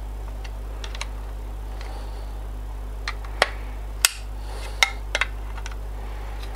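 Plastic housing of an IEK AVR-1 automatic transfer switch module being worked apart by hand: scattered sharp clicks and knocks, the loudest about three and a half, four and five seconds in. A steady low hum runs underneath.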